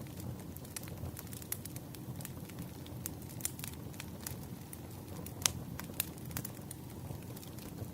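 Wood fire burning: a steady low rush of flames with irregular sharp crackles and pops of burning firewood, the loudest pops about five and a half and six seconds in.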